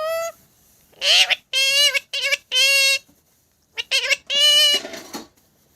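Pet parrot talking: a string of short, high-pitched, speech-like calls, with a pause about three seconds in before a last few syllables.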